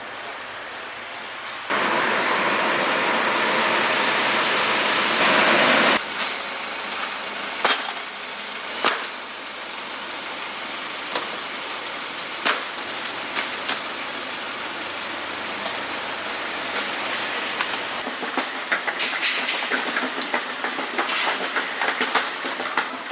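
Chicken frying in a cauldron of hot oil: a loud hiss for a few seconds near the start, then a quieter sizzle. Scattered metal knocks and clinks run through it, and the crackling gets busier near the end.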